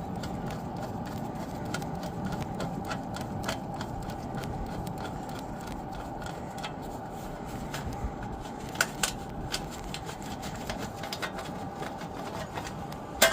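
Small clicks and taps of metal parts being handled, a few sharper ones about nine seconds in, over a steady background hum.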